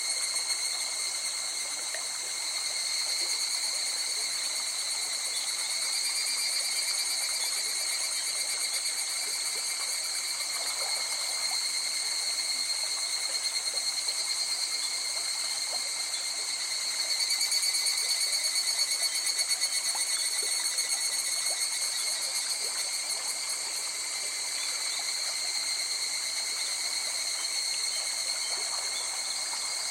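A steady, high-pitched chorus of night insects calling continuously in several overlapping bands, over a faint wash of flowing river water.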